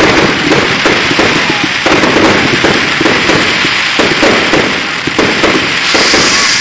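Aerial fireworks bursting in a continuous barrage of crackling and popping, the crackle stars snapping many times a second, with a steady high hiss joining in near the end.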